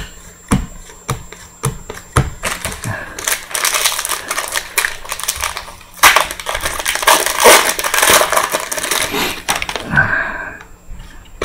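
Trading cards set down on a pile with a few sharp taps, then a card pack's wrapper crinkling and crackling as it is torn open, loudest in the last few seconds.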